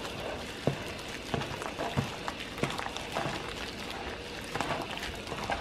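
Wet squelching of a gloved hand kneading thick spice paste into raw chicken pieces in a plastic bowl: soft irregular squishes and small clicks, about one or two a second.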